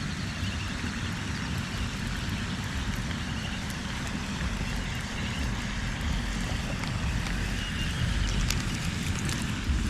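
Steady low rumble and hiss of outdoor background noise, buffeting like wind on the microphone, with faint chirps through it and a few sharp clicks near the end.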